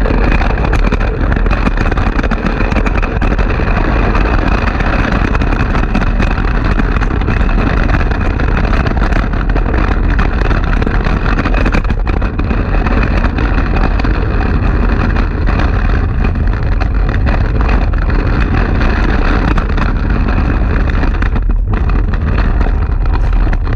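Wheels of a homemade wooden skateboard rolling over concrete paving as it is dragged along by a rope, heard from a camera riding on the board: a loud, steady rumble.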